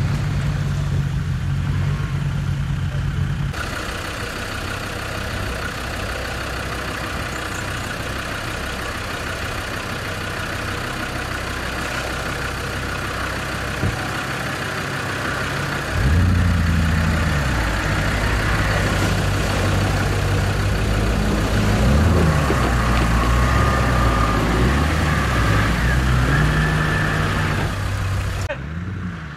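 Toyota Land Cruiser HDJ80's straight-six diesel engine idling, then running steadily under a rush of creek water after a cut about four seconds in. About 16 seconds in the engine gets louder and its revs rise and fall again and again.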